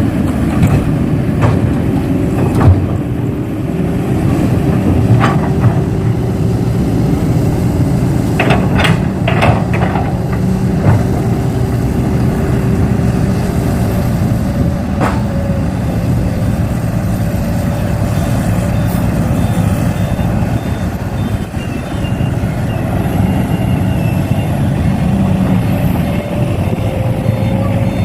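Heavy-equipment engine running steadily at a constant pitch, with scattered sharp clicks and knocks, clustered around nine to eleven seconds in.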